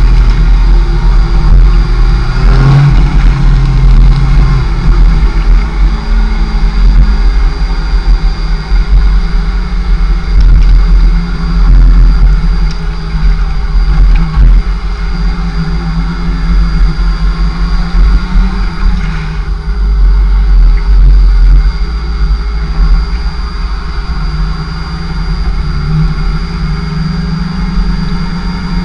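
Kawasaki ZX-6R 600 sportbike's inline-four engine running while ridden, its pitch stepping and gliding up and down with throttle and gear changes, under heavy wind rumble on the microphone.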